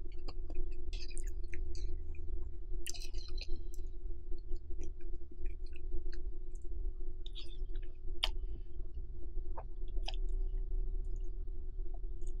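Close-miked eating of creamy shrimp spaghetti carbonara: wet chewing and mouth sounds with scattered short clicks from a plastic fork working the pasta on the plate. Under it runs the steady hum of an electric fan.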